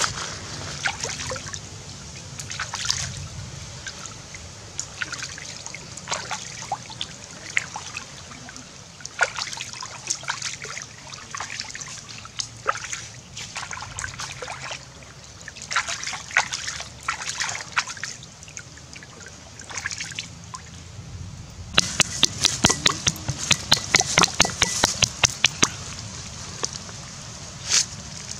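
Hands rinsing raw fish in a shallow stream: water splashing and dribbling in irregular strokes, with a spell of quicker, louder splashing near the end.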